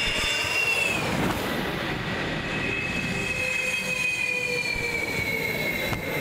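Su-30 fighter jets rolling out on the runway after landing, their jet engines whining high over a rushing jet noise; the whine glides slowly downward as the engines run down.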